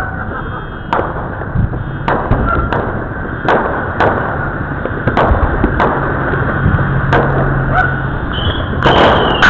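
Fireworks going off across a neighborhood: scattered bangs and pops at irregular intervals over steady background noise, with a louder cluster of bangs near the end.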